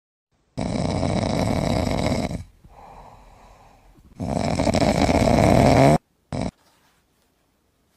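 Loud, rattling snoring: two long snores of about two seconds each with a quieter breath between them, then a short snort near the end, each cutting off abruptly.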